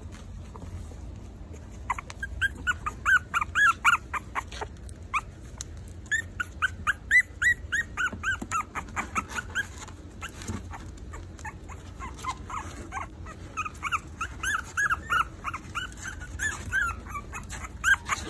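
Four-week-old Maltese puppies whimpering and crying, many short high-pitched squeals coming in bursts with brief lulls between them.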